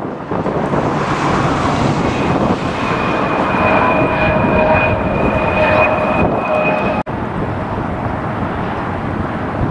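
Jet airliner engines passing: a steady rush with a high whine on top, which ends after a brief dropout about seven seconds in, leaving a quieter rush.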